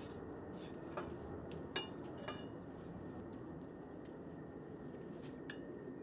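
A few light metallic clinks and scrapes as a steel sleeve is handled on a KC-135 landing-gear wheel axle, most of them in the first half, over a steady background hum.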